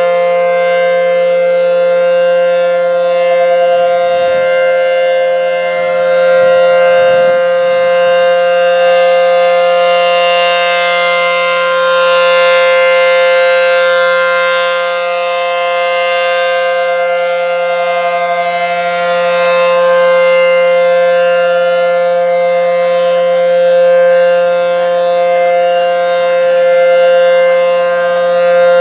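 ACA Howler three-phase electromechanical outdoor warning siren sounding its steady alert tone at full speed: a loud chord of several steady tones holding one pitch, the loudness swelling and dipping only slightly.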